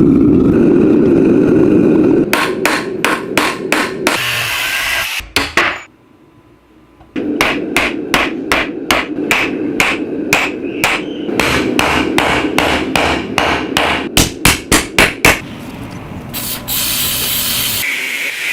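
Hammer striking a steel drill bit being worked into a knife, in runs of quick, evenly spaced blows, about three a second, with a short pause near the middle. A steady rushing noise comes at the start and again near the end.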